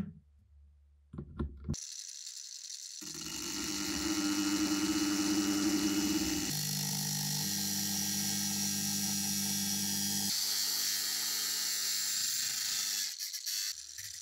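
A small electric power tool running steadily over a high hiss, its pitch shifting in steps a few times before it stops near the end. Brief handling clicks come at the start and again just before the end.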